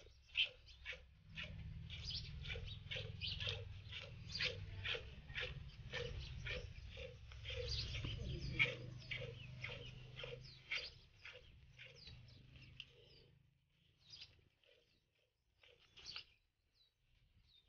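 Milk squirting into a stainless steel mug as a cow is milked by hand, in a steady rhythm of about two or three squirts a second, with a low rumble underneath. The squirting stops about three-quarters of the way through, leaving a few scattered squirts.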